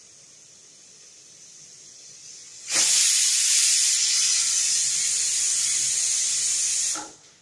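Aluminium stovetop pressure cooker whistling: after a faint hiss builds, steam suddenly bursts out of the weighted vent in a loud hiss for about four seconds, then cuts off abruptly. This single whistle signals that the cooker has reached full pressure and the sambar is cooked.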